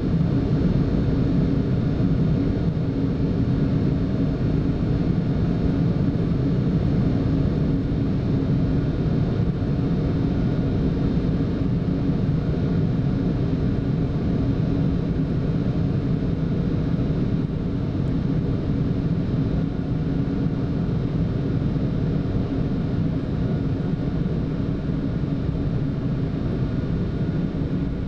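Steady flight-deck noise of a Boeing 747-8F freighter in the climb after takeoff: a low, even rush of airflow and engine sound with a few faint steady tones above it.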